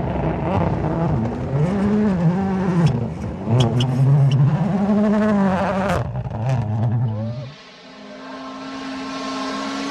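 A motor vehicle's engine, its pitch going up and down as it revs, with a few sharp clicks in the middle. About three-quarters of the way through it drops away into a steady, slowly rising drone.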